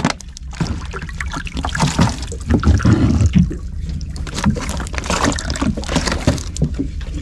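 Small boat at sea: a steady low rumble of wind and water against the hull, with many irregular knocks and rattles.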